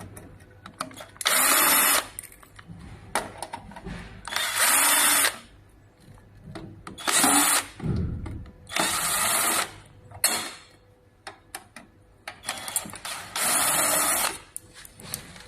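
A small electric motor runs in five short bursts of about a second each, with clicks and handling knocks between the bursts.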